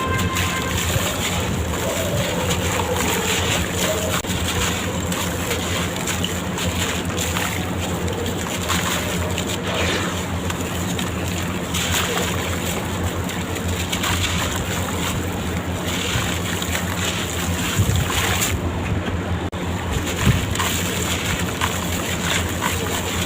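Water sloshing and splashing as sand-cement blocks crumble and break apart in it, a steady watery noise with faint crackling.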